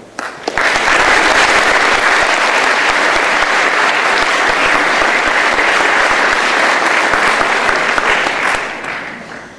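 Audience applause: a few first claps, then dense clapping from about half a second in, steady, dying away near the end.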